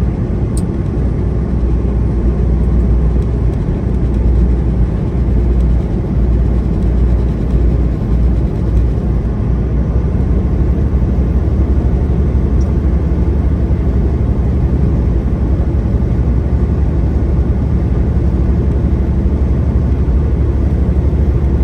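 Semi-truck driving: a steady low drone of engine and road noise, heavy in the bass and unchanging.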